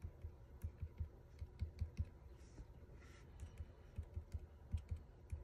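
Faint, irregular tapping of a small stamp pressed again and again onto paper on a wooden tabletop, about two or three soft taps a second, some with a sharp click.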